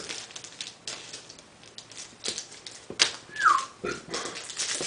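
Baseball trading cards being flipped and handled, giving a run of light rustles and clicks. A short high whine falls in pitch about three and a half seconds in.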